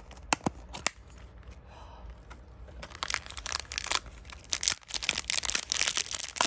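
Toy packaging being opened by hand: a few sharp clicks in the first second, then from about three seconds in, dense crinkling and tearing of the wrapper.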